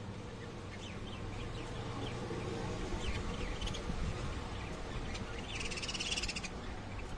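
Lovebirds chirping: a run of short, sharp chirps, with a denser, louder burst of chattering about six seconds in, over a low steady hum.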